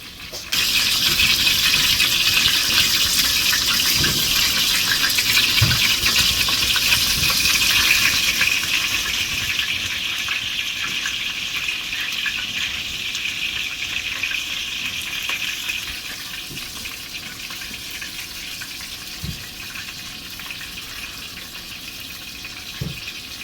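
Loud sizzling in a hot pan as hot sauce is poured onto the frying rabbit. It starts suddenly and slowly dies down, with a few faint knocks.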